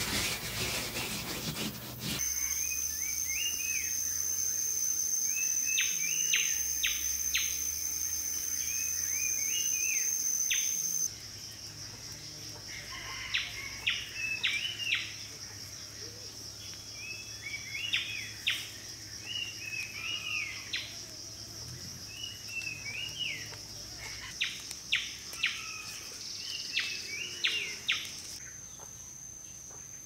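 Forest ambience: birds repeating short chirping phrases over a steady high-pitched insect drone. A rasping rub fills the first two seconds.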